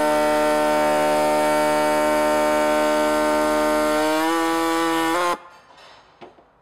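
A handheld power tool's motor running steadily while it cuts a moulded plastic peg off an air filter housing. Its pitch dips about four seconds in as the cut bites, and it stops suddenly about a second later.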